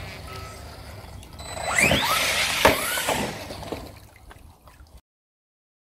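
Arrma Outcast 4S RC truck's brushless motor and drivetrain whining through quick rising and falling revs, with a sharp knock partway through. It then fades and cuts off near the end. The tail of background music dies away at the start.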